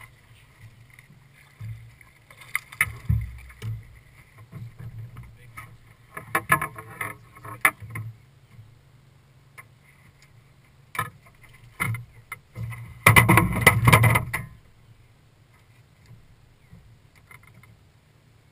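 Irregular knocks, rattles and splashy clatter as a smallmouth bass is played and landed from a bass boat's front deck, over a low steady hum. The loudest burst, about a second and a half long, comes about two thirds of the way through.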